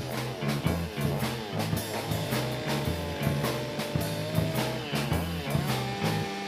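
Rock music with a rhythmic bass line, drums and sliding guitar notes.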